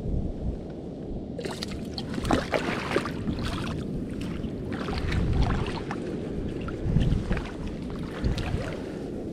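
Wader boots sloshing and splashing through shallow water over rocks, with irregular splashes from about a second and a half in, over a steady rumble of wind on the microphone.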